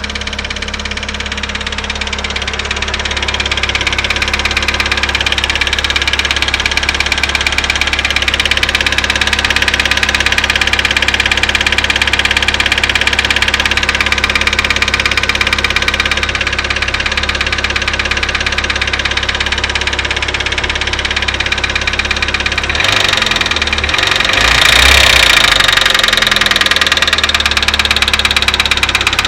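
Daewoo Lanos engine running with a rapid, even ticking knock over the engine sound, which the owner identifies as hydraulic lifter (tappet) knock. The engine speed shifts briefly about three-quarters of the way through.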